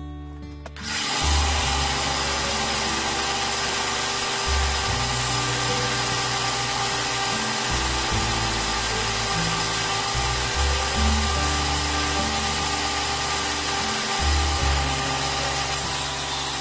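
Belt grinder grinding a steel knife blade forged from a pipe wrench: a loud, steady grinding hiss that starts about a second in.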